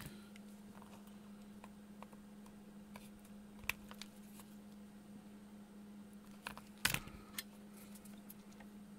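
Light clicks and taps of small tools and parts being handled on a workbench, with a louder clatter about seven seconds in, over a steady low hum.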